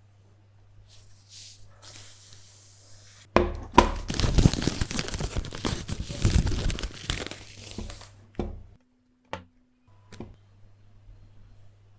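Mouse packaging being torn open and crinkled: a light rustle, then loud tearing and crinkling for about four seconds, followed by a few sharp clicks. A steady low hum runs underneath.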